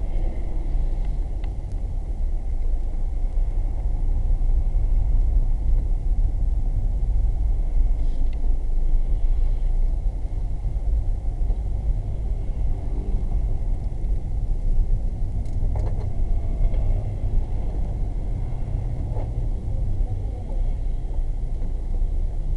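Steady low rumble of a car driving, tyre and engine noise heard from inside the cabin through a dashboard camera's microphone, with a faint steady high tone above it.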